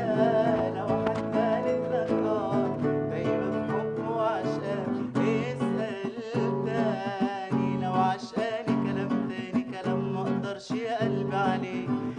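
Acoustic guitar accompanying a male singer in an Arabic song, the voice moving in wavering, ornamented runs over the guitar's plucked chords.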